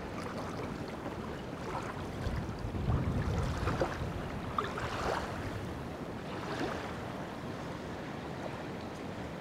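Small lake waves lapping at the shoreline, with wind buffeting the microphone and a stronger low gust about two to four seconds in.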